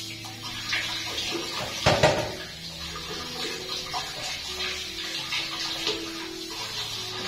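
Water spraying from a handheld bidet sprayer and splashing, with a louder burst of splashing about two seconds in.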